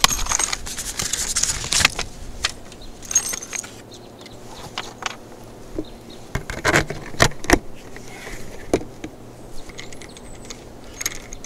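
A new RV thumb lock being unpacked, with plastic packaging crinkling for about the first two seconds. Then scattered light metallic clicks and jingles as the lock's parts are handled and fitted to a compartment door.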